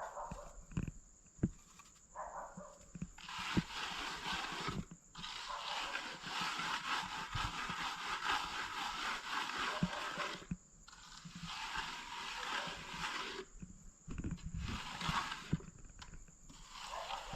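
Gritty scraping noise in long stretches, broken by short pauses and scattered sharp knocks, like sand and stones being worked by hand.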